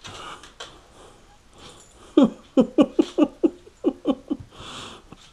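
Soft-coated wheaten terrier whimpering: about ten short, falling cries in quick succession starting about two seconds in. The owner suspects a pinched nerve or thrown-out back.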